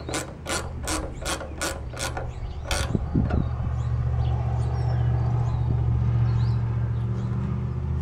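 Socket ratchet clicking in a quick run, about two or three clicks a second, as the pivot bolt of a mirror arm is turned. The clicking stops about three seconds in, and a steady low drone comes up and holds for the rest.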